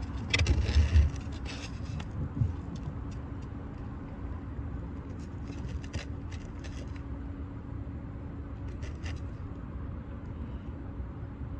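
Steady low rumble with a constant faint hum, like a running motor, under scattered light clicks and handling knocks. A louder cluster of low thumps comes about half a second to a second in.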